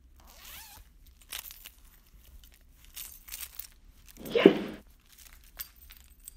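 Crinkling and tearing of a plastic chip bag in scattered short bursts, with a brief loud vocal sound about four seconds in.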